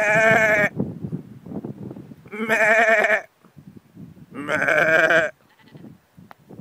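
Three loud, wavering bleats, each under a second long and about two seconds apart.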